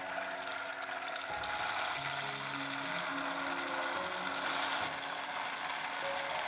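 Battered chicken pieces deep-frying in hot oil: a steady, dense sizzle that starts sharply as the pieces go in. Soft background music plays underneath.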